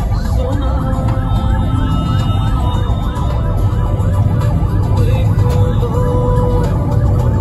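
Background music: a wavering melody with several pitched parts moving together over a steady low bass.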